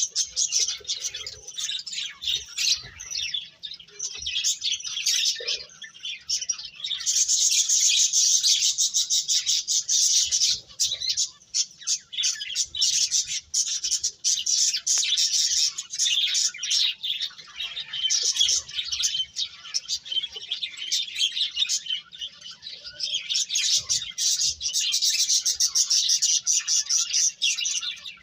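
Small birds chirping rapidly and continuously, many short high notes packed close together, swelling into denser, louder stretches about a quarter of the way in and again near the end.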